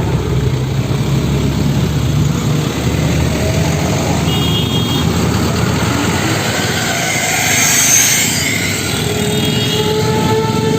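Road traffic: engines and tyres of passing vehicles, with one passing close about eight seconds in.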